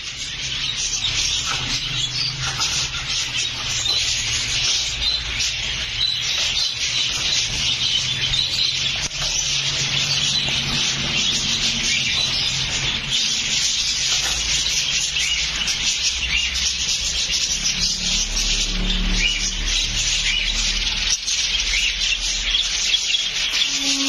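A shopful of caged lovebirds chirping and chattering at once: a dense, unbroken chorus of high chirps with no pauses.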